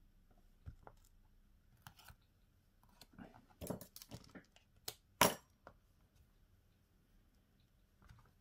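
Handling sounds from smartphone repair work: scattered small clicks, taps and scrapes of tools and phone parts, bunched together in the middle, with one sharp click a little after five seconds as the loudest.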